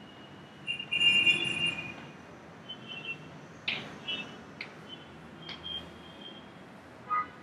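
Chalk squeaking and scraping on a blackboard as lines are drawn: several short, high squeals, the longest and loudest about a second in, with a few sharp taps of the chalk against the board in between.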